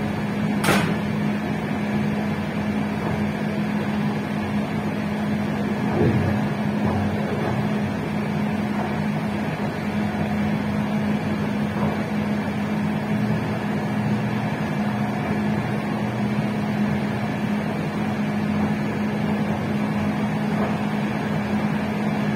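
PKP Intercity passenger train running along the line: a steady rumble of wheels on rails under a constant hum, with a sharp click just under a second in and a few fainter knocks later.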